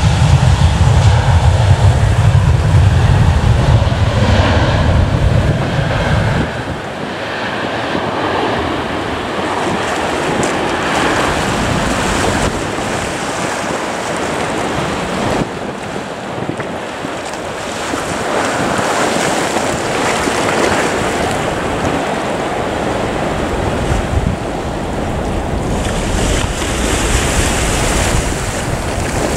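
An aircraft's engines rumble low for the first six seconds or so, then fade. What is left is a steady rushing noise of wind on the microphone and surf.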